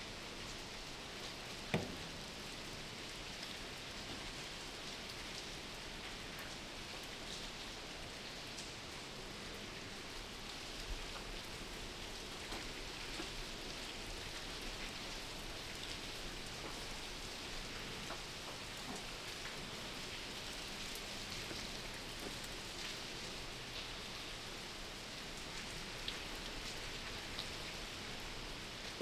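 Steady patter of rain with faint scattered drips, and a single sharp knock about two seconds in.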